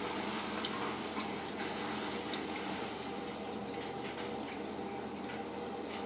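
Small drips and light splashes of shallow water in a turtle tub: scattered, irregular faint clicks over a steady low hum.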